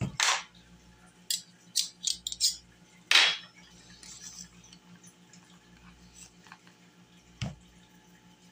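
A metal measuring spoon and a plastic salt container being handled: a few sharp clicks and clinks, a louder scrape as the spoon scoops salt about three seconds in, and a dull knock near the end.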